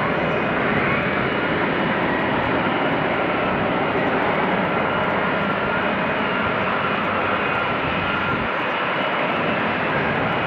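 F-35B Lightning II's jet engine running with a steady, loud rush and a faint high whine over it.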